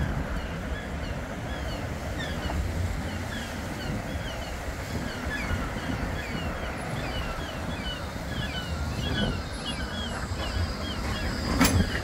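Bombardier Flexity 2 tram approaching along street-running track, a low rumble under wind buffeting the microphone, growing louder and ending in a sharp clack as it draws level. Small birds chirp over it throughout.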